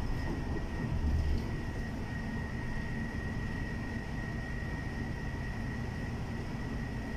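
Airport bus driving, heard from inside the cabin: a steady low rumble of engine and road noise with a thin, steady high whine over it, and a brief louder low surge about a second in.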